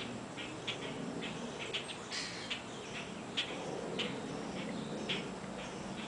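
Small birds chirping in short, sharp, irregularly spaced chirps, about two a second, over a steady low background hum.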